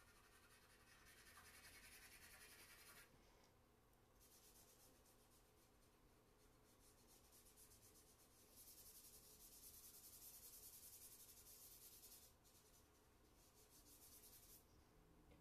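Faint scratching and rubbing of a charcoal stick on drawing paper in runs of quick shading strokes, strongest for a few seconds at the start and again for several seconds in the second half.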